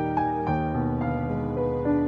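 Slow relaxing piano music: a few notes struck one after another, each ringing on over a held low note.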